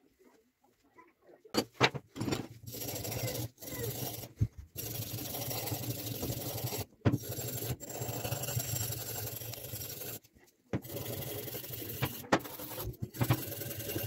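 Rusty steel cleaver blade scrubbed hard by hand on a metal bench to strip the rust, a continuous scratchy scraping that starts about a second and a half in and goes in runs of a few seconds with short pauses and a few sharp knocks.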